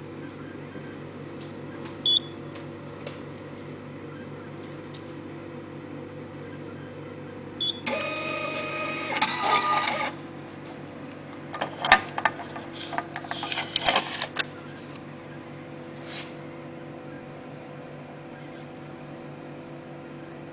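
Tokheim outdoor payment terminal: a couple of short high beeps, then its receipt printer runs for about two seconds. After a pause come more clicking, whirring bursts as the receipt is fed out. A steady electrical hum sits under it all.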